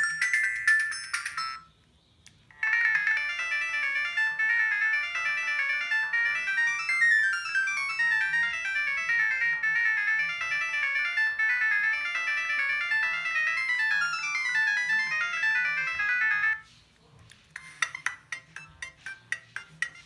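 Siemens S55 mobile phone playing its built-in polyphonic ringtones through its small speaker. One tone ends about a second and a half in; after a short gap a bright, quick melody plays for about fourteen seconds. After a brief pause another tone of rapid repeated short notes begins near the end.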